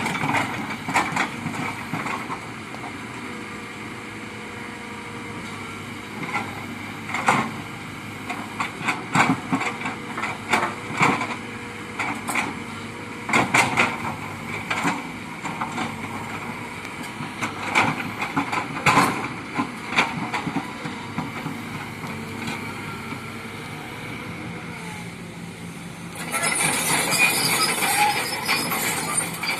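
Kobelco excavator working: its diesel engine runs steadily under many sharp knocks and clanks, with a louder rushing hiss near the end.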